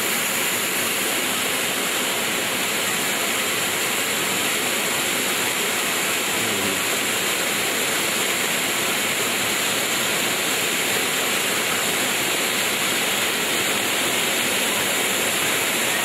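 Small waterfall cascading over rocks into a stream, a steady, even rush of water.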